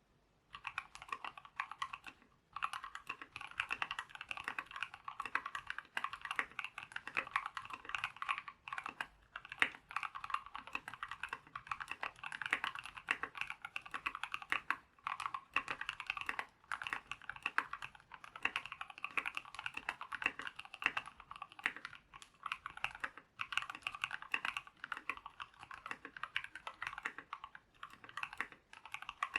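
Typing on a custom 60% mechanical keyboard: a KBDFans Tofu60 case with aluminium plate and PCB foam, Gateron Black Ink V2 linear switches and MT3 keycaps. Rapid, continuous keystrokes with a few short pauses.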